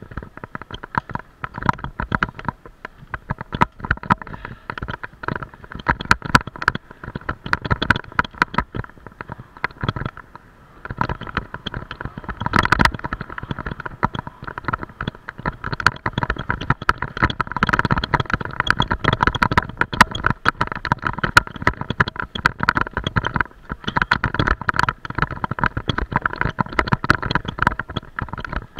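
Continuous rough rattling and knocking from an action camera being carried along at speed, with a rumbling noise underneath.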